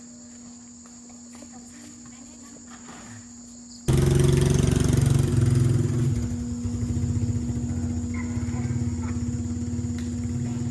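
Crickets chirring, then about four seconds in an engine cuts in suddenly and runs loudly with a rhythmic pulse, settling to a steady idle.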